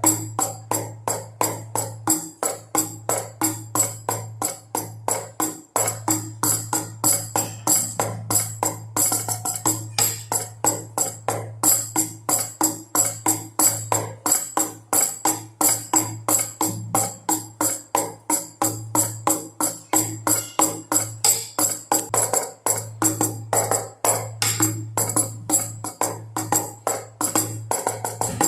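Baby rattle shaken with two drums in a steady, even beat, about three to four strokes a second, with a jingling, tambourine-like rattle on each stroke. A steady low drone runs underneath.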